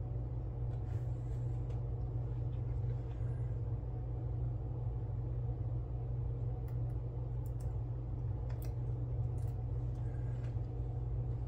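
Steady low hum, with a few faint light clicks from small parts and a tool being handled.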